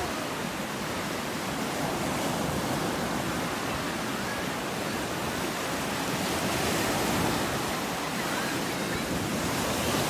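Black Sea waves breaking and washing up onto a sandy beach: a steady hiss of surf.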